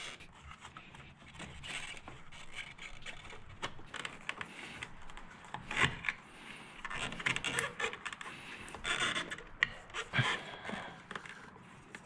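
Hard plastic scraping, rubbing and clicking as hands work the car's black plastic air-intake ducting and trim loose, with a couple of sharper knocks about six and ten seconds in.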